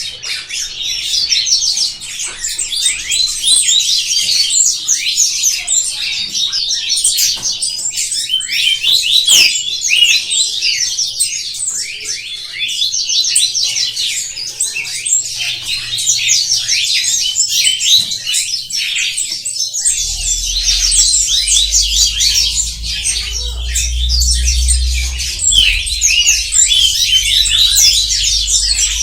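Many small birds chirping and twittering together in a dense, continuous chorus of high, rapid notes. About two-thirds of the way in, a low rumble joins underneath.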